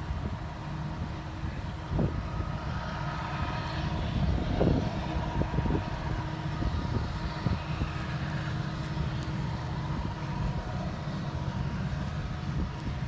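Low, steady rumble of approaching diesel freight locomotives' engines, with a few faint steady tones above it and scattered short knocks.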